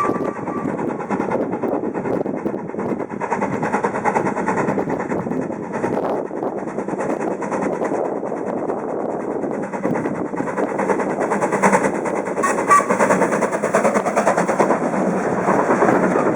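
Steam-hauled train passing, with a dense, steady rattle of wheels and carriages on the rails and a few sharper clicks.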